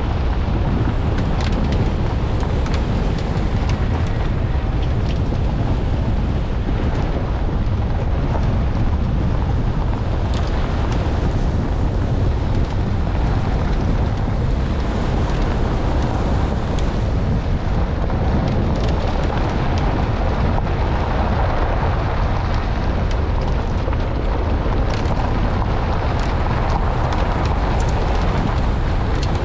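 Steady rumble of a 4x4 driving on a gravel track, its tyre and running noise mixed with wind on the microphone, and scattered sharp clicks throughout.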